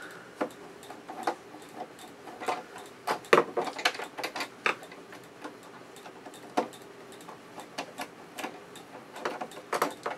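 Irregular small clicks and taps of a screwdriver working screws out of the plastic back of an Akai VT-150 video tape recorder, with the casing parts being handled; the loudest cluster of clicks comes about three seconds in.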